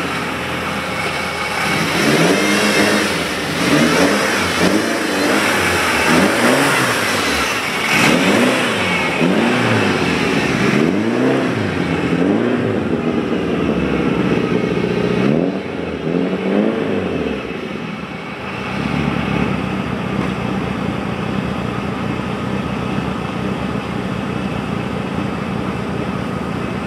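Nissan SR20DET turbocharged four-cylinder engine in a Datsun Stanza revving hard again and again, its pitch rising and falling every second or so. About two-thirds of the way through it settles to a steadier, lower drone.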